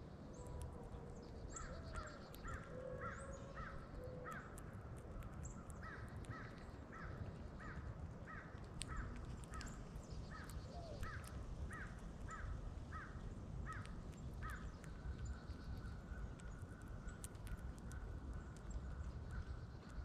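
A bird calling repeatedly: a run of short, evenly spaced calls, about two a second, that stops about fifteen seconds in. Fainter higher chirps and scattered sharp clicks come and go, and a thin steady tone takes over near the end.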